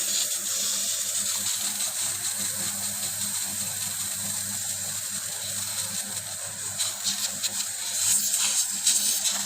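Refrigerant gas hissing steadily while a refrigerator is charged with gas after its blocked filter-dryer was replaced, over a low steady hum. The hiss grows louder and more uneven near the end.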